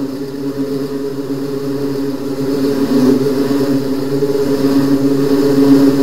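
Swarm of bees buzzing, a dense steady drone that slowly grows louder, as if the swarm is closing in.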